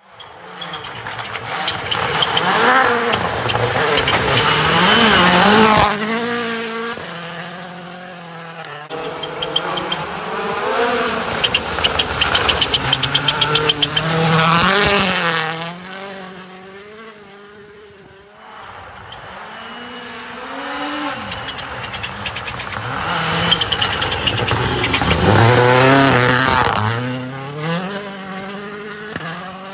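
Hyundai i20 N Rally1 Hybrid rally car's turbocharged 1.6-litre four-cylinder engine revving hard as the car passes three times. Its note climbs and drops repeatedly with each gear change and lift, and a rapid crackle comes in the middle pass.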